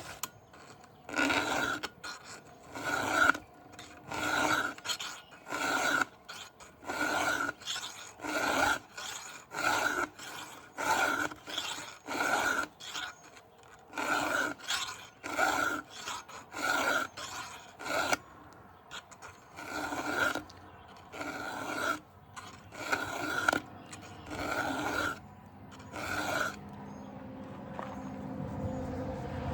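Round file being pushed by hand across the cutters of a Stihl MS 500i chainsaw chain. About two dozen rasping strokes come roughly one a second, each with a slight ring, with short pauses between teeth, and they stop about 26 seconds in.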